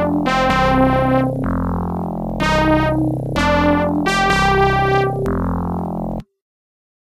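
Intro music on an electronic keyboard: a new chord struck about once a second, each dying away, the music cutting off abruptly about six seconds in.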